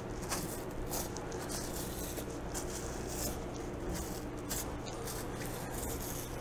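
Short strokes of a 6-inch curved Victorinox knife slicing dry bison hide away from the carcass: a run of faint scratchy crackles and scrapes. A steady low hum runs underneath.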